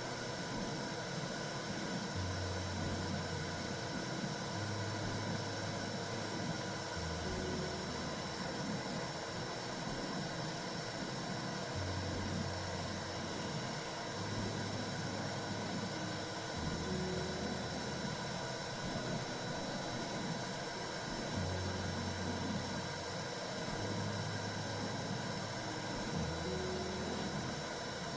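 Steady whooshing womb-sound white noise for calming a baby, with a low hum underneath that steps down through three pitches and repeats about every ten seconds.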